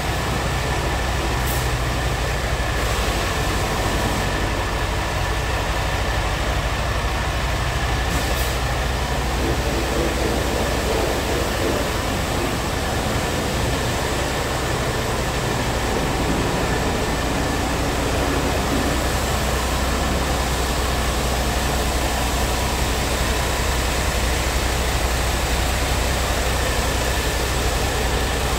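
Scania G-series diesel tractor unit's engine idling steadily, a constant low running sound with a faint steady whine above it.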